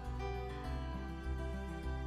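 Background music: a gentle instrumental track with plucked guitar-like notes over a steady bass.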